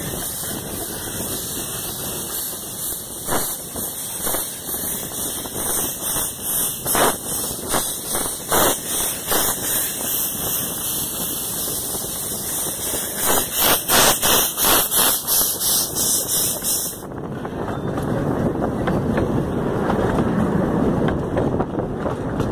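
Three small 10¼-inch-gauge steam locomotives pull away together: a steady loud hiss of escaping steam with a run of exhaust chuffs that come quicker for a few seconds. About 17 seconds in, the hiss cuts off sharply and the rolling rumble of the passing carriages' wheels on the rails takes over.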